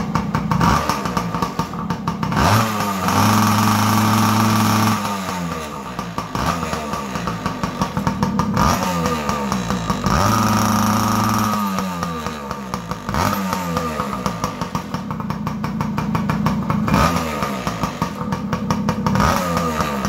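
Yamaha PW80's two-stroke single-cylinder engine, with the baffle insert in its muffler, idling and being revved. It is held high twice for a couple of seconds, dropping back to idle each time, and blipped a few more times.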